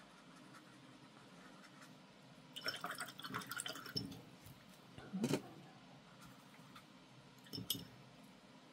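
Watercolour brush rinsed in a glass jar of water: a quick run of clinks and watery rattles for about a second and a half, then two shorter clinks a couple of seconds apart.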